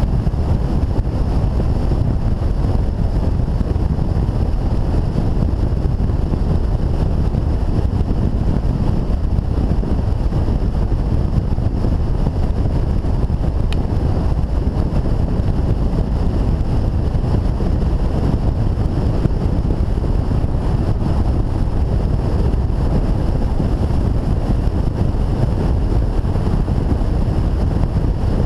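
Steady wind rush on the microphone over the engine and road noise of a BMW touring motorcycle cruising at a constant highway speed.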